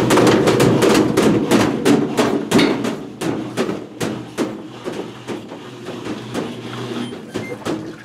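GE GTW680BSJWS high-efficiency top-load washer running with an off-balance load: the drum bangs and knocks repeatedly, several times a second, over the steady hum of the machine. The knocking fades gradually through the second half.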